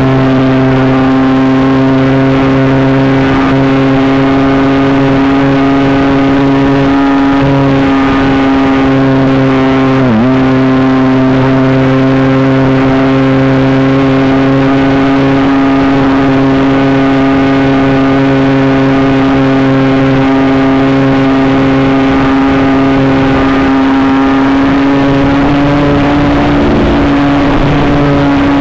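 Electric motor and propeller of a TW 747 Cessna-style RC model plane, heard from the onboard camera, running at steady cruise throttle with a whine. About ten seconds in the pitch dips sharply for a moment, then returns.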